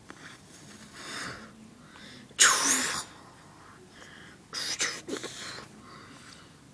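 A person's sudden breathy vocal burst, sneeze-like, about two and a half seconds in, followed by two shorter breathy noises about five seconds in.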